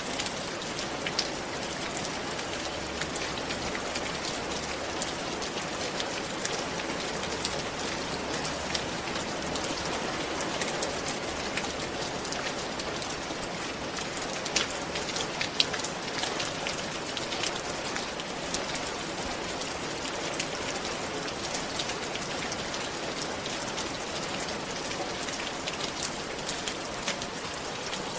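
Steady rain falling on a roof, a dense even hiss with many individual drops ticking sharply throughout.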